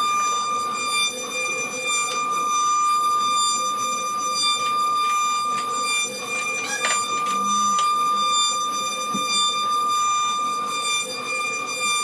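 Multi-spindle CNC wood router whining steadily at a high pitch, with scattered clicks and knocks from the clamps and wooden panel being handled on the machine bed.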